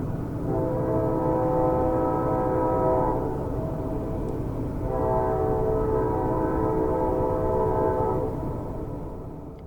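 Steam locomotive whistle sounding two long blasts, a chord of several steady tones, over a continuous low rumble of the train running; everything fades out near the end.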